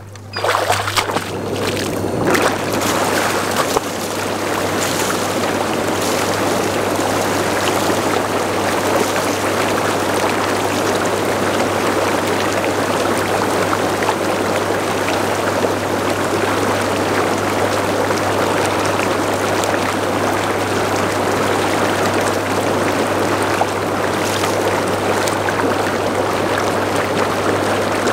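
Rushing water, a steady loud wash of noise, with a few sharper sounds in the first few seconds.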